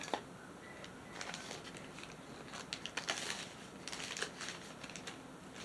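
Faint rustling and scattered light clicks of small craft-kit parts and packaging being handled.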